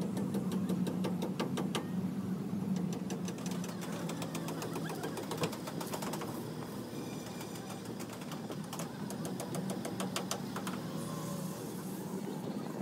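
A motor running steadily with a low hum, with many scattered sharp clicks over it.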